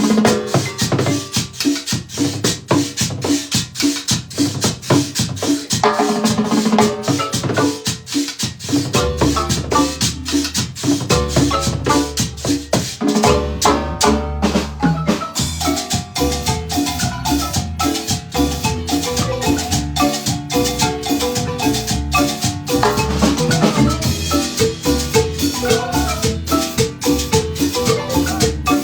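A marimba band plays an upbeat piece: rapid mallet notes on the marimba over a steady beat with shaker and drums. A deeper bass line comes in about nine seconds in.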